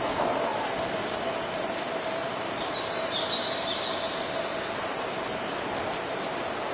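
Steady rain falling, laid on as a sound effect, with a faint steady tone beneath it and a brief high chirp, like a bird, about three seconds in.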